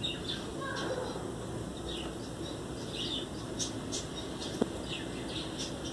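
Small birds chirping, many short high chirps, over a steady background hiss. A single sharp click comes about three-quarters of the way through.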